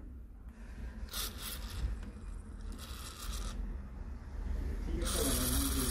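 Aerosol can of PCB cleaner spraying through its straw nozzle in short hissing bursts, about a second in and again about three seconds in, then a longer, louder burst near the end. The cleaner is soaking the strong adhesive under a phone battery to loosen it.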